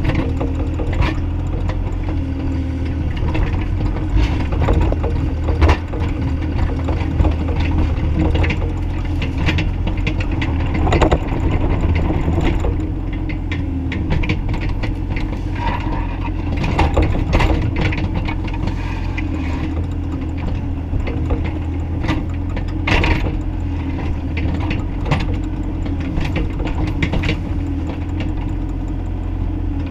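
Bobcat E35i compact excavator's diesel engine running steadily under work, with frequent clanks and knocks from the machine as it digs.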